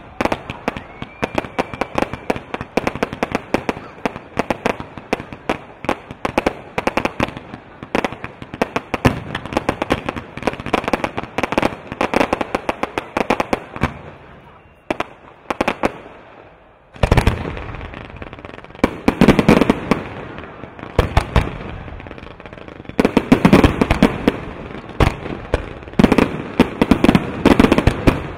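Fireworks display: rapid crackling and popping from fountains and comets, easing off briefly about halfway, then clusters of heavier, deeper aerial shell bursts through the second half.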